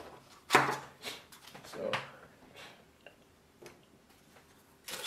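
Handling sounds as a small plastic nursery pot is picked up and held over a foil tray of bark-and-perlite potting mix: a sharp knock about half a second in, then a few lighter, scattered clicks and rustles.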